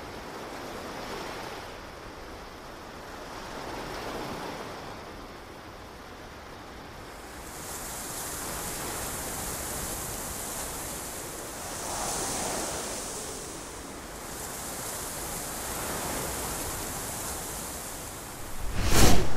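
Ocean waves washing onto a beach, swelling and fading every few seconds, with a steady high hiss joining partway through. A sudden loud boom hits near the end.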